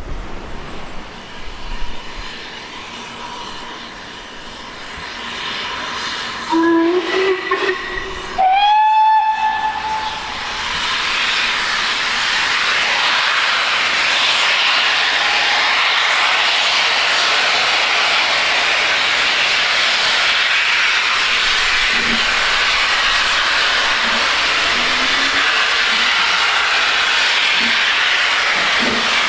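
Two steam-locomotive whistle blasts about two seconds apart, the second higher and sliding briefly up in pitch. They are followed by a loud, steady hiss of steam from a double-headed train led by BR Standard Class 4MT 4-6-0 75078. Wind buffets the microphone before the whistles.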